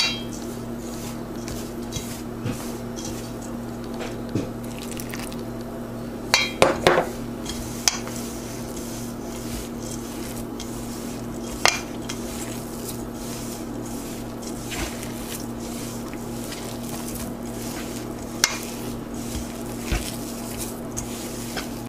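Hands mixing and pressing crumbly biscuit dough in a stainless steel bowl, with scattered knocks and clinks against the bowl, the loudest cluster about six to seven seconds in. A steady low hum runs underneath.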